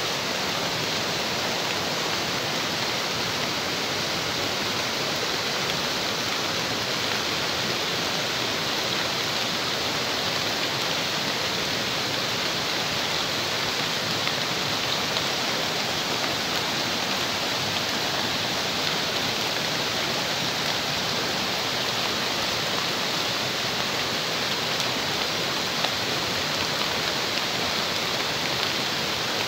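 Steady, even rush of flowing water that goes on without a break, with one light tick near the end.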